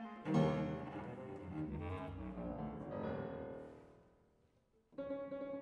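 Contemporary chamber music for a flute, clarinet, violin, cello, piano and vibraphone sextet. A loud, low attack about a quarter second in sets off quick flurries that fade almost to silence. Near the end a new passage of steady held and repeated notes comes in.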